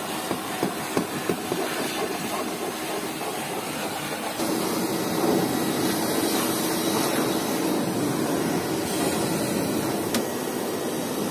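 Vacuum cleaner running, its nozzle sucking dust and grit from a car's seats and floor. About four seconds in it gets louder and settles into a steady hum.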